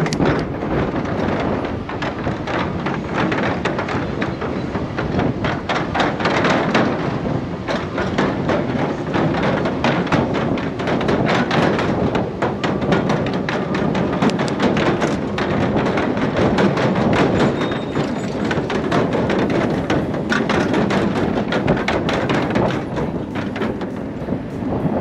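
Riding noise from a bicycle towing a dog trailer: steady wind and rolling noise with many quick knocks and rattles throughout.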